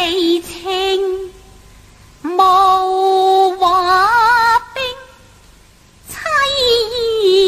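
Cantonese opera singing: a solo voice sings long held notes with a wavering vibrato, in three phrases with two short pauses between them.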